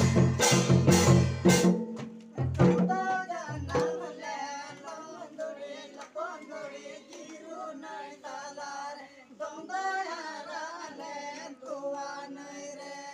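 Drums beating loudly, then stopping with a few last strokes. After that, a group of men sing a Santhali Dasai song without the drums.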